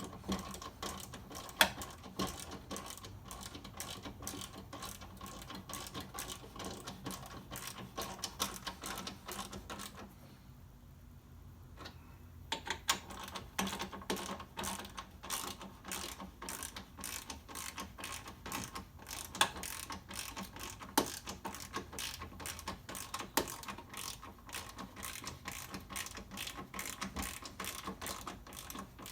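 Hand ratchet with a 10mm socket clicking in quick runs while the bolts holding a new power window regulator are tightened down. The clicking pauses for about two seconds around ten seconds in.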